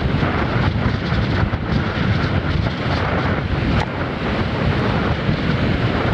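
Strong force-6 wind buffeting the microphone in uneven gusts, over the steady rush of surf breaking on a sandy shore.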